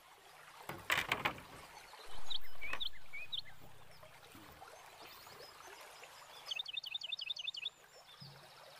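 Water splashing: a few sharp splashes about a second in, then a louder one about two seconds in that fades out over a couple of seconds. Birds chirp through it, and near the end one gives a fast run of about ten chirps.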